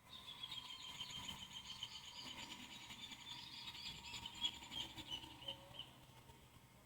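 Faint, high-pitched chirping trill of rapid pulses that runs steadily and fades out about six seconds in.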